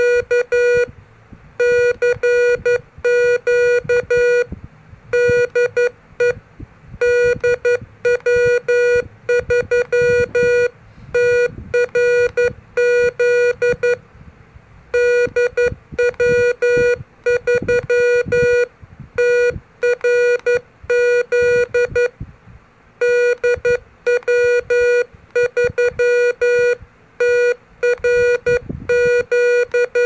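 Morse code (CW) sent on the paddles of an MFJ-403 pocket electronic keyer: its sidetone beeps a steady, slightly buzzy tone in dits and dahs, with a few short pauses between groups and faint paddle clicks underneath.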